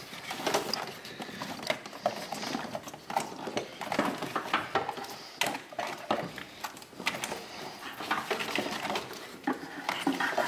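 Rubber serpentine belt being worked up off the pulleys and out of a V6 engine bay by hand, with no engine running. It makes irregular rustling, scraping and light knocks as the belt and hands brush against hoses and plastic covers.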